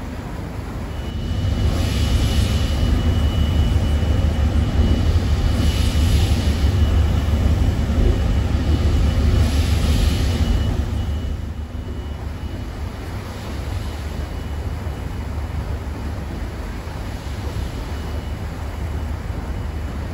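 Steam paddlewheel churning the river inside its housing: a steady low rumble with a splashing swish about every four seconds and a thin steady whine. About halfway through it gives way to a quieter steady rumble.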